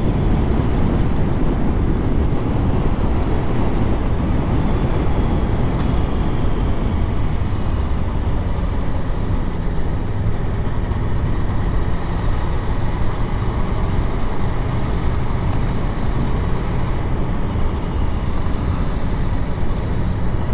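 Aprilia Tuono V4 1100 motorcycle's V4 engine running steadily while the bike is ridden, with the rush of riding noise.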